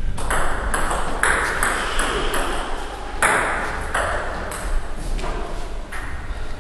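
A table tennis ball clicking off the bats and table in a quick run of sharp hits, roughly two to three a second and thinning out after about five seconds, each with a short echo from the hall. A steady low hum lies underneath.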